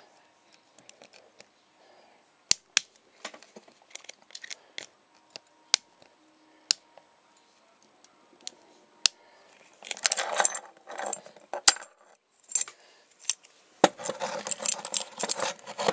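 Sparse sharp metallic clicks from handling and picking a Yale 50mm brass padlock, then from about ten seconds in two spells of jangling and clinking of metal keys on a ring and padlocks.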